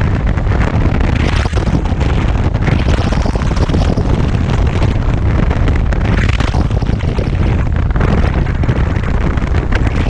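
Heavy wind buffeting on the microphone over the rush of water past the hull of a Tornado racing catamaran sailing at speed, a loud, steady roar.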